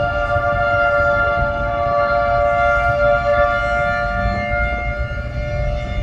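Federal Signal 2T22 two-tone outdoor warning siren sounding during a test, two tones sounding together at a steady pitch.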